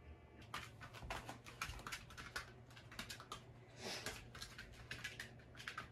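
A Shiba Inu's claws clicking on a vinyl plank floor as it walks about: a quick, irregular patter of light taps that starts about half a second in.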